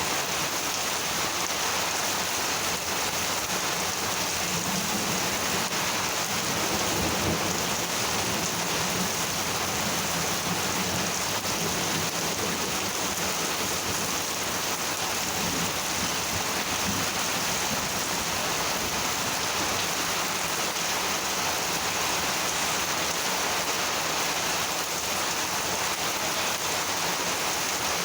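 Heavy monsoon rain falling steadily. A low rumble of distant thunder sits under it in the first half.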